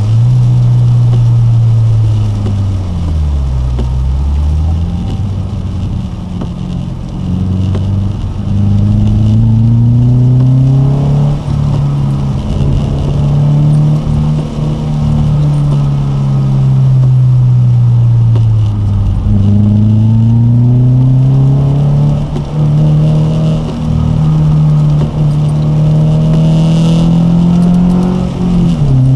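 BMW 323ti's 2.5-litre straight-six heard from inside the cabin, driven hard: the engine note climbs and drops again and again as it pulls through the gears and eases off for corners, dipping low about three seconds in and again near twenty seconds.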